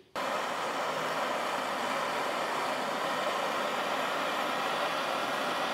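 Handheld propane torch burning with a steady, even hiss of flame, heating a seized door hinge pin. The hiss starts abruptly just after the start.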